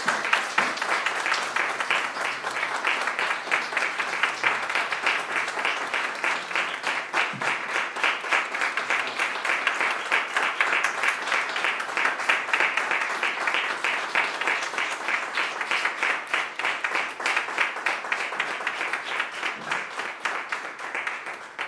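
An audience applauding: many hands clapping in a dense, steady stream that ends fairly suddenly near the end.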